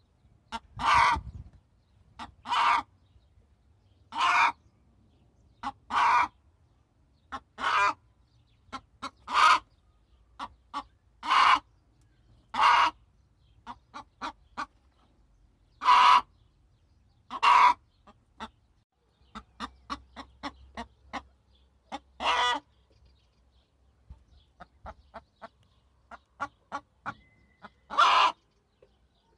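Domestic hen calling: a loud squawk every one to two seconds, with soft short clucks in between and a run of quick low clucks in the last third.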